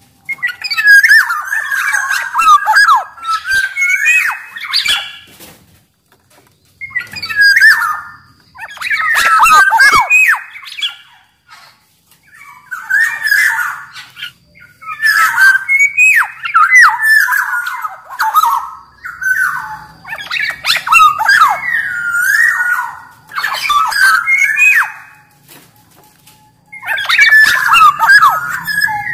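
Black-naped oriole (kepodang) singing actively. It gives bursts of quick, varied whistled and scratchy phrases a few seconds long, with short pauses between them.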